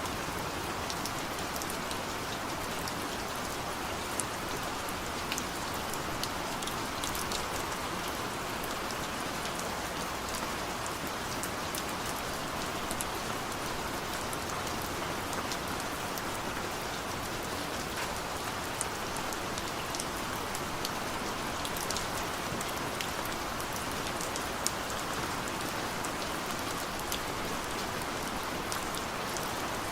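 Heavy rain falling steadily, with many scattered sharp taps of single drops striking close by.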